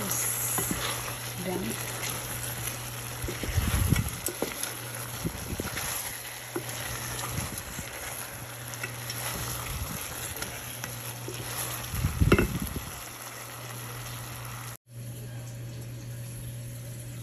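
Chicken feet adobo sizzling in a thick, reducing sauce in a stainless steel pot while a wooden spatula stirs and scrapes through it, with a couple of louder thumps about four and twelve seconds in. Near the end the sizzling cuts off, leaving a quieter steady hum.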